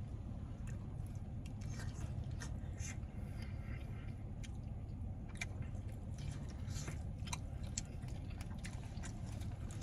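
A person chewing food close to the microphone, with many small irregular wet mouth clicks, over a steady low hum.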